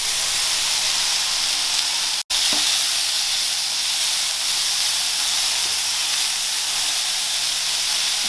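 Chicken seekh kebabs sizzling in a little oil on an electric griddle: a steady frying hiss that cuts out for an instant about two seconds in.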